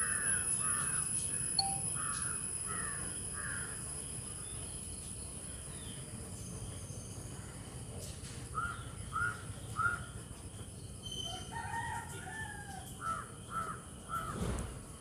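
Birds calling: bouts of short, harsh, falling calls about two a second, one bout at the start and more from about eight seconds in, over a faint steady high whine.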